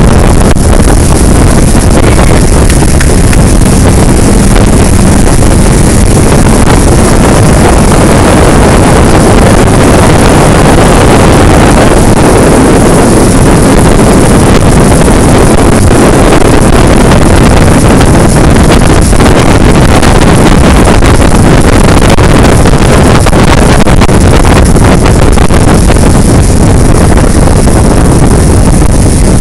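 Motorboat running at speed, heard from on board, with wind buffeting the microphone and the churn of its wake; a loud, steady rush throughout.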